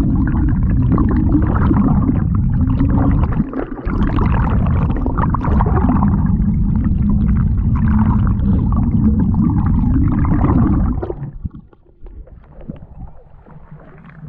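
Muffled underwater rush of water over a submerged action camera's microphone as the canoe moves along, a loud low rumble with crackling on top. It drops away about eleven seconds in as the camera comes up out of the water, leaving faint water sounds.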